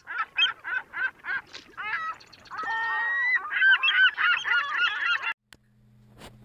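A run of short honking animal calls, about three a second, then many overlapping calls. They stop suddenly a little after five seconds in, leaving a faint steady low hum.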